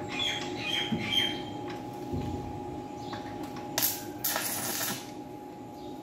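Metal door-lock hardware being handled and fitted against a metal door: a few short squeaks in the first second or so, a sharp click a little before the fourth second, then a brief scrape.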